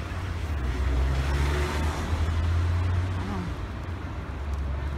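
City street traffic: a steady low rumble, swelling as a car passes about one to two seconds in.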